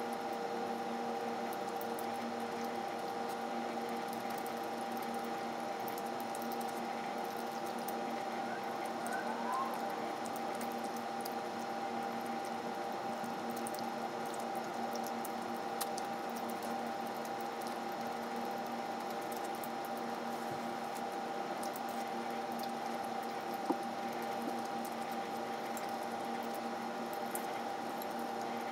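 Close-miked eating sounds: soft chewing and squishing of broth-soaked oden pieces, with scattered small clicks, over a steady hum that is the loudest thing throughout.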